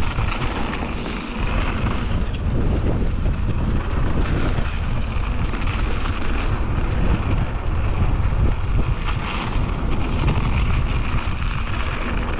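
Mountain bike running down a dirt flow trail: steady rumble of tyres on the ground with wind buffeting the action camera's microphone, and short knocks and rattles from the bike now and then.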